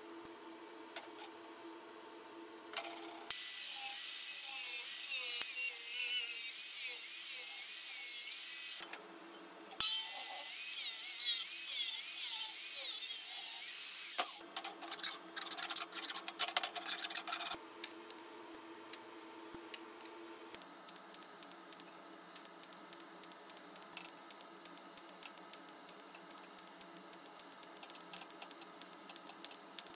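Angle grinder cutting thin sheet steel in two long runs of about five seconds each, then a few short bursts. After that, a much quieter welding arc crackles with many small rapid ticks.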